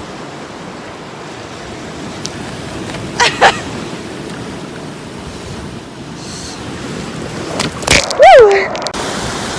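Ocean surf washing steadily, with two short sharp noises about three seconds in. Near the end comes the loudest sound, a short voiced yelp that rises and falls in pitch.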